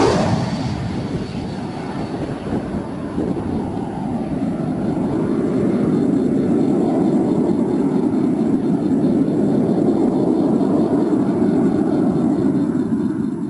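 Airplane passing overhead: a loud, steady low engine noise that swells through the middle and begins to fade near the end.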